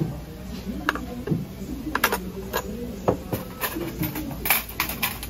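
Dishes and bowls clinking and knocking on a table as a restaurant meal is set out, a scatter of sharp clicks, with faint voices murmuring in the background.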